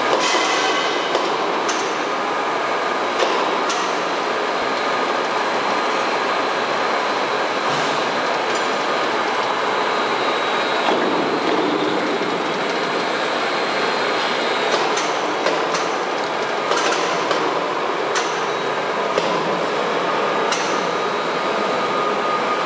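Caterpillar-type plastic pipe haul-off machine running, giving a steady mechanical noise with occasional sharp clicks.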